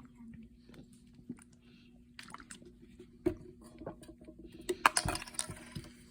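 Classroom room noise: scattered small clicks and knocks over a steady low hum, with a short burst of rustling and clattering about five seconds in.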